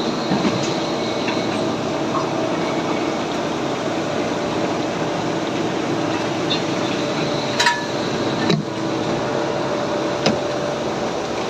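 CNC gear-machining machine running with a steady hum that carries a few held tones, with three sharp metallic clinks in the second half.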